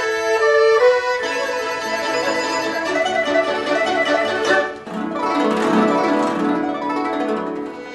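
Traditional Chinese silk-and-bamboo (sizhu) ensemble music led by plucked string instruments. The music grows fuller and lower about five seconds in.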